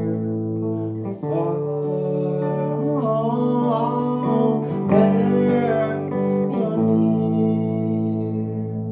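Acoustic guitar chords played under a solo folk song, changing chord about a second in and again near the end, with a wavering melody line above the guitar in the middle.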